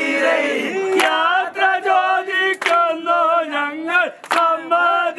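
A group of men, snake-boat oarsmen, chant-singing a vanchipattu boat song loudly in unison, their pitch wavering up and down. A few sharp claps cut through the singing.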